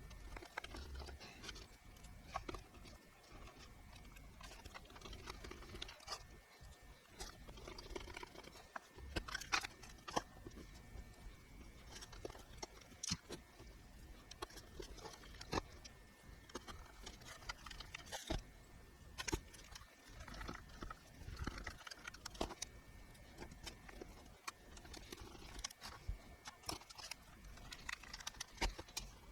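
Irregular clicks, taps and light knocks of small computer parts being handled, over a faint steady high hum.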